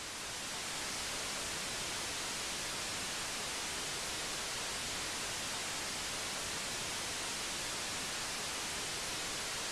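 Steady static hiss that fades in over about the first second, then holds an even level with no tones or breaks.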